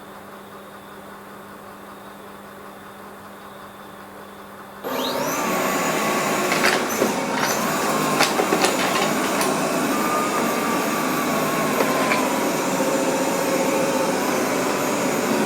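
Liectroux C30B robot vacuum cleaner starting auto cleaning: after a faint hum, its suction motor comes on suddenly about five seconds in, with a whine that glides up. It then runs steadily, with a few sharp clicks in the next few seconds.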